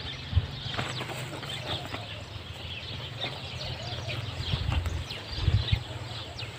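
Chickens clucking in the background: many short calls scattered throughout, over a steady low rumble.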